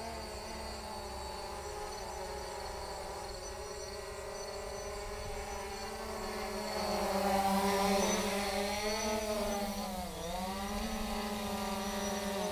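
Holy Stone HS700D quadcopter's brushless motors and propellers buzzing in flight. The hum grows louder about seven seconds in, then dips briefly in pitch near ten seconds before picking back up as the throttle changes.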